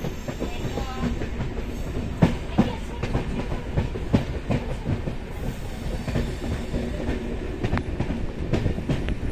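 Passenger train coach running along the track, heard from beside the open side of the coach: a steady rumble of wheels on rail with irregular sharp clacks and knocks.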